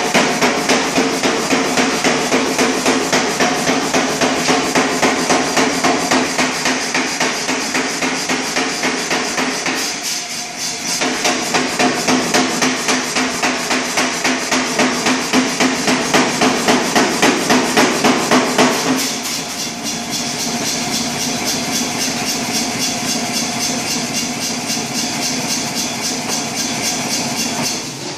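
A 100 lb Reiter air hammer pounds a bar of hot 1045 steel in a rapid, steady run of blows, drawing out an axe drift. The blows pause briefly about ten seconds in, then resume, and from about two-thirds of the way through they are lighter.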